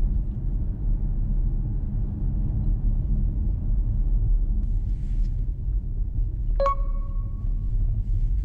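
A steady low rumble, with one short click and a brief ringing tone about two-thirds of the way through.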